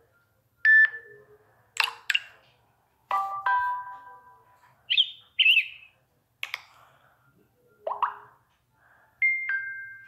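Samsung Galaxy J7 Sky Pro notification tones previewed one after another: about seven short electronic chimes, beeps and chirps with brief silent gaps between them, ending with a falling two-note ding-dong.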